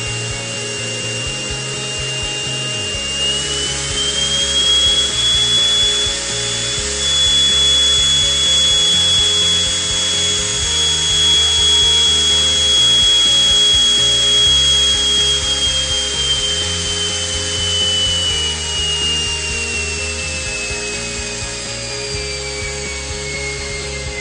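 A 3D-printed miniature turbine jet engine whining at high speed. The pitch rises a little about three seconds in, holds steady, then falls over the last eight seconds as the engine spools down. Background music with a stepping bass line plays underneath.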